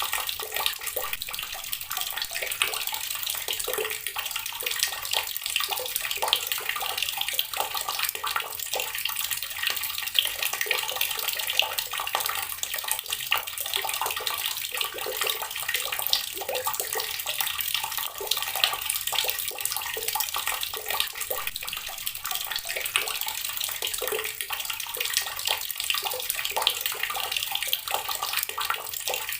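Water running steadily from a tap, splashing into a basin.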